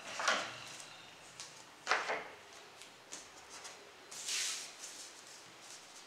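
Sheets of printer paper taped into one large pattern being slid and pressed flat on a wooden table: paper rustling in three short swishes, the last one longer and smoother, with a few light taps.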